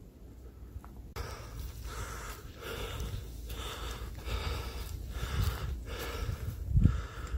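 A hiker breathing hard, quick heavy in-and-out breaths starting about a second in, as on a steep climb. A low rumble runs underneath, and there is a sharp low thump near the end.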